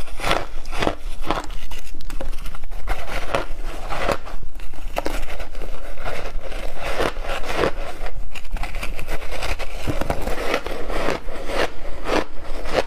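Chunks of ice, dyed purple and dusted with matcha and milk powder, being bitten and chewed close to the microphone: a steady run of sharp crunches and cracks, about two a second.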